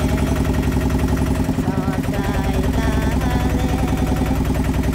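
Small river boat's engine running steadily under way, with a fast even pulse.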